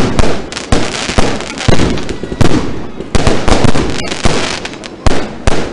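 Fireworks going off overhead: an irregular barrage of sharp bangs, about two loud ones a second, each fading off quickly.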